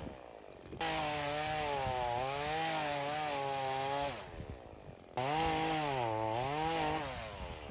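Chainsaw cutting through a poplar trunk in two stretches about a second apart. The engine's pitch sags and recovers as the chain bogs in the wood.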